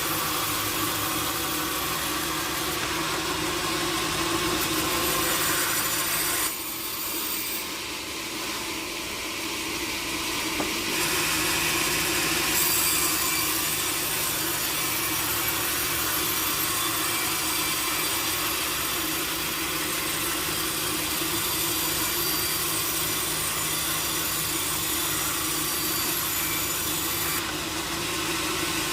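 Sawmill saw cutting teak wood, a continuous mechanical whine and rasp with a steady hum underneath; the cutting noise dips briefly about six seconds in and comes back strongly about five seconds later.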